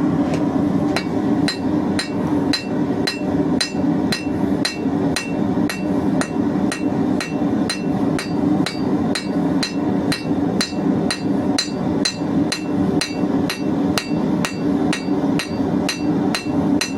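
Blacksmith's hammer striking hot square steel bar on an anvil in a steady, even rhythm of about two to three blows a second, each blow ringing briefly, over the steady rush of a gas forge.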